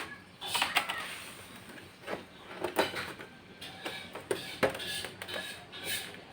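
Plastic housing of a Lenovo C20-00 all-in-one PC being pried apart: irregular clicks and short scrapes of a pry tool on the plastic as the snap clips let go.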